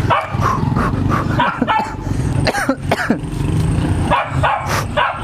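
A dog barking repeatedly, a string of short barks and yelps, over a steady low hum.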